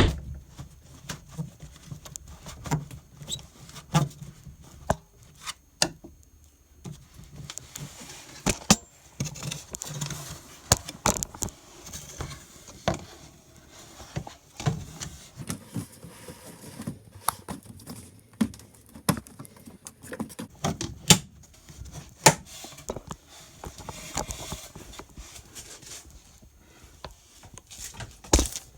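Irregular clicks, light knocks and rustling, as of hands handling parts and tools.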